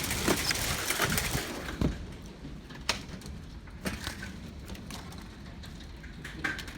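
Pea-sized hail and rain pelting down: a dense hiss thick with ticks that thins abruptly about a second and a half in, leaving scattered sharp ticks of single hailstones.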